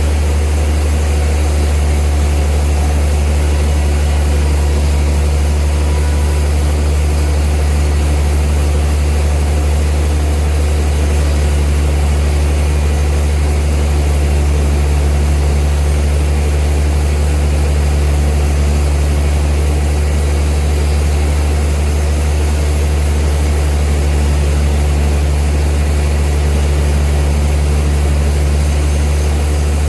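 Old sawmill machinery running with a loud, steady deep hum that stays unchanged throughout.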